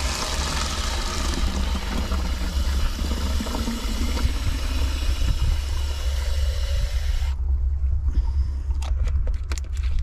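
Water running from a tap into a large plastic water bottle, cutting off abruptly about seven seconds in, followed by a few light clicks and knocks as the bottle is handled.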